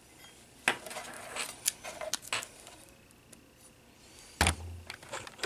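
Hard plastic camera housing and wall-mount bracket being handled: scattered clicks and light clatter, with one louder knock and thud about four and a half seconds in.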